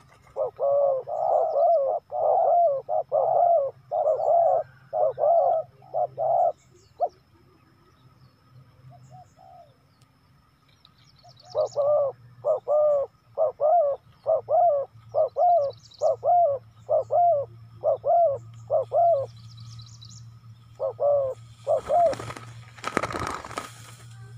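Spotted dove cooing: two long runs of short, even coos at about two a second with a pause between, then two more coos. A brief rustling noise comes near the end.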